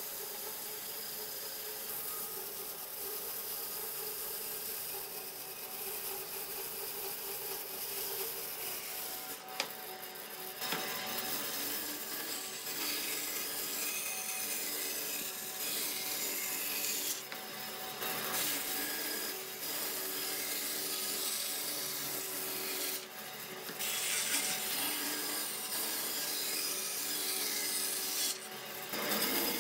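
Bandsaw resawing a thick block from a partly rotten log, the blade cutting steadily along the grain. The cutting sound breaks off briefly a few times.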